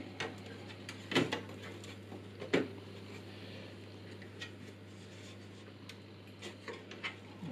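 Short clicks and knocks of an Elgato 4K60 Pro PCIe capture card being pushed and wiggled against a motherboard slot and the case's bracket opening, the card not yet lined up and not seating. The loudest are a close pair of knocks about a second in and another about a second later.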